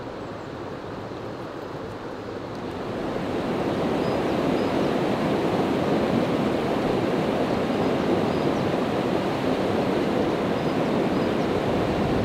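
Steady rushing of river water pouring over a small waterfall of rock ledges, growing louder about three seconds in.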